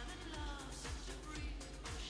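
Quiet background music with a steady beat.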